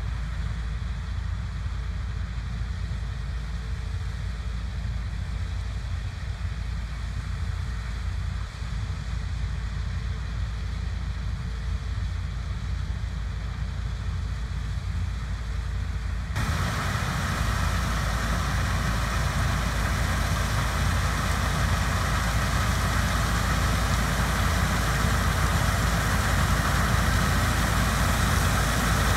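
Heavy farm machinery running steadily with a deep engine rumble. A little past halfway the sound abruptly turns brighter and hissier, and it grows gradually louder toward the end.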